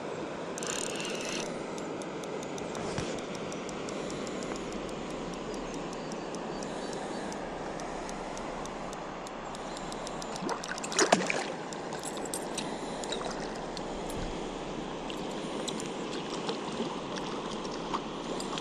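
Steady rush of flowing river water with light scattered clicks, and a short, louder clatter about eleven seconds in.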